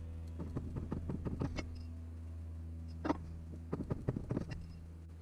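Hand-lever ring stretcher/reducer being worked on a coin ring: irregular metal clicks and knocks of the handle and mandrel in the cast-iron body, with the sharpest about three seconds in. A steady low hum runs underneath.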